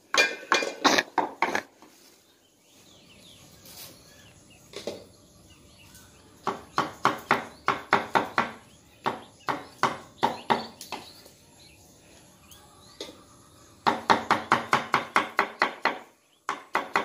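A cleaver chopping mushrooms on a wooden chopping block, knocking on the wood in quick runs of about four or five strokes a second. There are three runs, each separated by a few seconds' pause.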